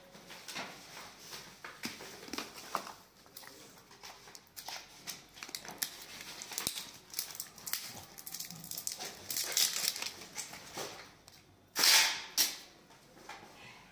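Handling noise from small plastic cream jars and cardboard cartons: irregular clicks of lids and jars with rustling and crinkling of the packaging, and one louder rustle about twelve seconds in.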